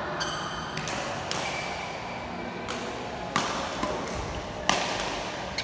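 Badminton rackets hitting a shuttlecock during a rally: several sharp hits at uneven intervals, the two loudest in the second half a little over a second apart. There is a brief high squeak near the start, likely from shoes on the court floor.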